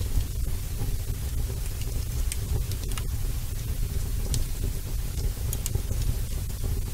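A steady low rumble under a constant hiss, with a few faint crackles scattered through it.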